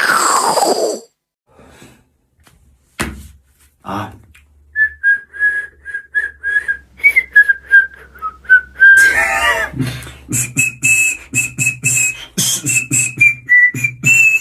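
Beatboxed mouth sound effects. A falling swoop opens it, then a few sharp clicks and a pulsing whistle. From about halfway in, a higher whistle tone rides over a fast rhythmic beat with low kick-like thumps.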